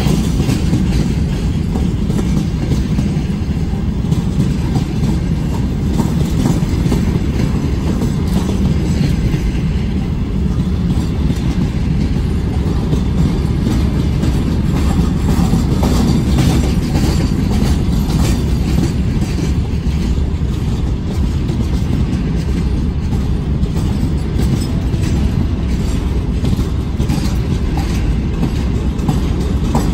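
Freight train wagons rolling past at steady speed, a continuous rumble with the wheels clacking over rail joints, the clacks coming thicker in the second half.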